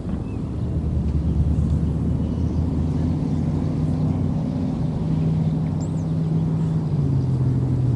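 Motor vehicle traffic: a steady low engine drone from passing vehicles, its pitch dropping a little about seven seconds in.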